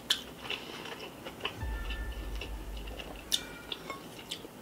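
Light, scattered clicks and taps of a fork against a glass sauce bowl and a serving platter while crab meat is dipped into butter sauce. There is a sharper clink a little past three seconds.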